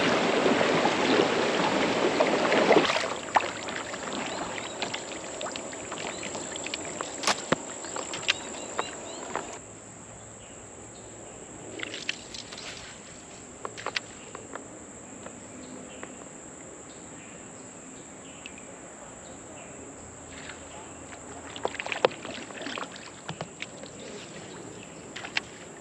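Water rushing around a kayak through a riffle, loudest for the first three seconds and then settling to a quieter flow. Scattered sharp clicks and knocks come over it, with a steady high-pitched insect drone behind.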